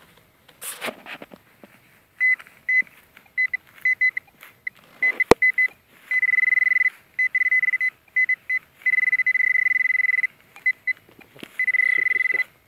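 Metal detector pinpointer sounding one steady high-pitched tone, first in short beeps and then in long unbroken stretches, which means it is right over buried metal. A single sharp click comes about five seconds in.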